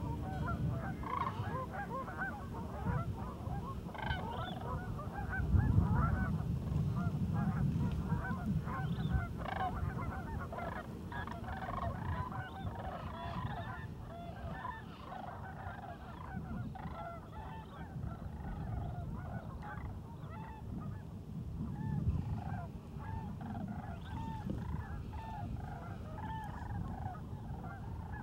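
A large flock of geese honking, many overlapping calls at once without a break, over a low rumble that swells about six seconds in.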